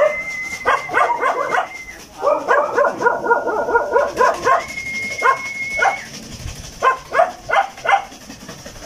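A dog barking in quick runs of several barks a second, with short breaks between the runs.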